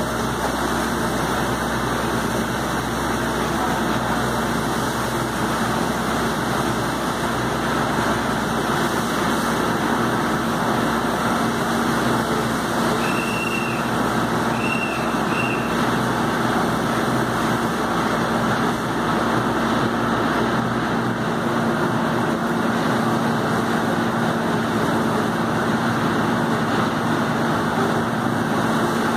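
Steady rushing noise with a steady engine hum underneath, from firefighters hosing down a burning car. A few short high chirps come about halfway through.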